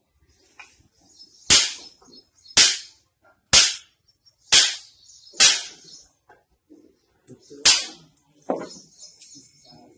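A hammer striking a patient's back in a spinal treatment: six sharp blows about a second apart, the sixth after a slightly longer gap.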